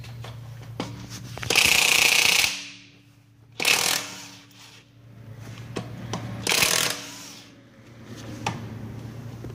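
Impact wrench hammering on a car's wheel lug bolts in three bursts: a long one of about a second, a short one, then one of about half a second. A steady low hum runs underneath.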